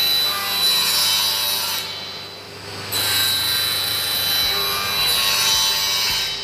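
10-inch table saw with a 3 hp belt-driven induction motor cutting wood on its sliding crosscut table. One cut ends about two seconds in, the saw runs free for about a second, then a second cut runs through to the end.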